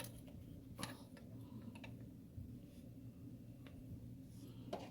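A few faint, sharp clicks of metal parts and tools being handled, spaced about a second apart, over a low steady hum.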